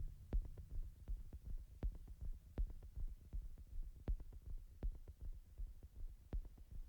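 Quiet electronic background music: a deep bass pulse with sharp, regularly spaced clicking beats, slowly fading.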